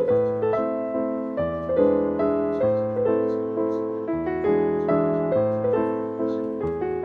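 Background piano music: a melody of struck, decaying notes over low bass notes.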